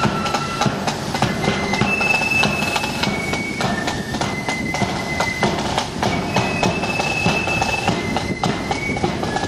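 Marching flute band playing a tune: a melody of high held flute notes over continuous snare and bass drum beats.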